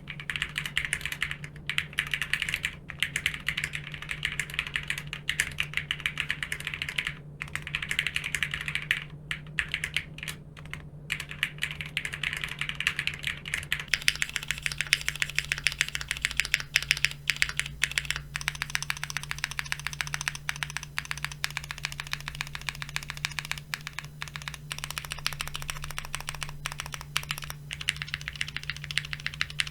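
Steady typing on a Neo70 plateless, foamless, gasket-mounted mechanical keyboard with Cherry MX Red linear switches and Cherry-profile keycaps, over a low steady hum. The first part is heard through a phone's microphone; about fourteen seconds in, the sound changes to a USB dynamic microphone.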